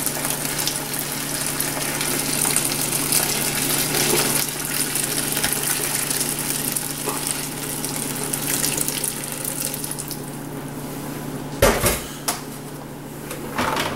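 Chicken stock pouring from a stockpot through a plastic colander into a pot below, a steady splashing that dies down about ten seconds in. Near the end, a sharp clunk as the emptied pot is set down in the metal sink.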